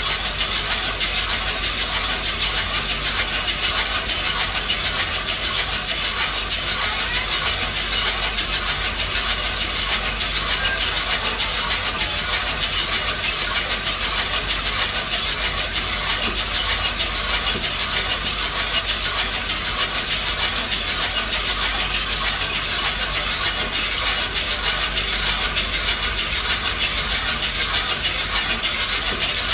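Hand-cranked drum coffee roaster turning over a portable gas burner: coffee beans rattling and tumbling inside the perforated drum, over a steady hiss. The sound is even throughout, with no cracks or pops standing out.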